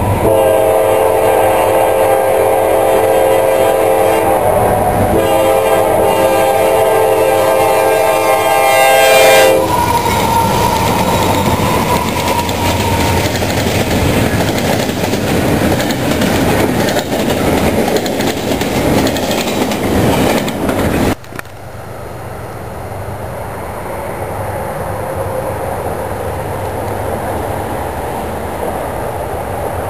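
A locomotive's multi-chime air horn sounds two long blasts as a train nears a grade crossing. The train then passes with a loud rumble and clatter of wheels on rail. About two-thirds of the way through, the sound cuts off suddenly to a quieter steady rumble.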